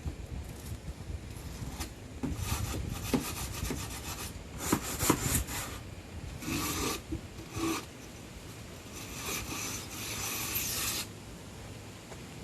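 Wire brush scrubbing in several short spells of scraping strokes, with brief pauses between them and a few sharp clicks.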